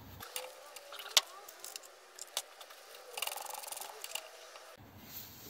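Light metal clicks and knocks as a centre is handled and fitted into a lathe tailstock's drill chuck, with a sharp click about a second in and another near the middle, then about a second of rapid metallic ticking from the chuck being worked.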